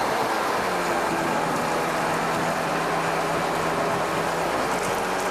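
A crane's engine running steadily while hoisting a boat in slings: a constant hum over a wide background rush.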